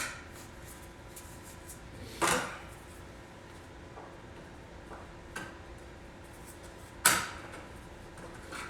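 Metal hand tools and parts being handled: an Allen key and the blower wheel assembly knocking against sheet metal, with a clank about two seconds in, a louder one about seven seconds in, and a few light clicks between.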